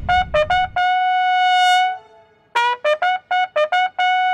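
A bugle call played on a bugle: a quick run of short notes ending on a long held note, then after a brief pause a second run of short notes ending on another long held note.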